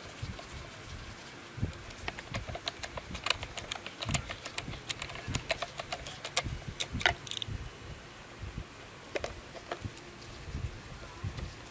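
Irregular small clicks and light knocks of a hand socket driver turning and seating the bolts that hold the plastic fuel tank onto a Ryobi grass trimmer's engine. The clicking is busiest through the middle of the stretch and thins out near the end.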